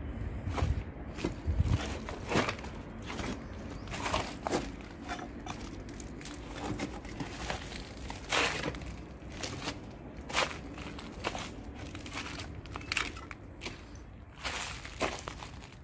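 Footsteps crunching and scraping over broken tiles, rubble and dry leaves, in uneven steps, with a few heavier thuds in the first couple of seconds.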